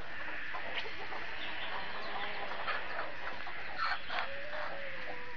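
Domestic chickens clucking now and then over a steady background hiss: a few short clucks, then a longer low note near the end.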